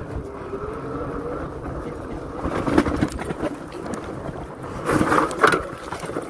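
Two-wheel-drive fat-tire electric bike riding over rough desert ground: a faint motor whine in the first couple of seconds under a steady rumble of tyre and wind noise on the microphone, with rough jolts about three and five seconds in.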